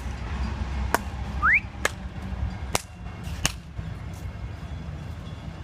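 Low steady rumble of city street noise, broken by a few sharp clicks and one short rising whistle-like chirp about one and a half seconds in.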